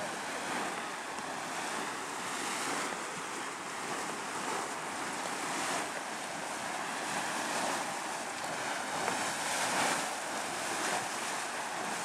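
Grey, muddy hot spring boiling and churning hard in a steaming pool: a steady splashing, surging noise that swells and eases slightly.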